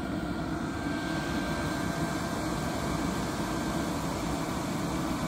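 Hcalory HC-A01 diesel air heater running, its combustion fan and exhaust making a steady rushing drone with a faint thin whine above it.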